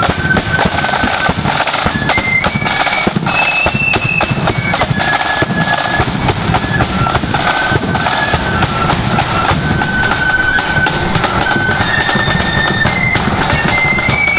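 A marching flute band playing a tune: a high flute melody stepping from note to note over dense side-drum beating and a bass drum.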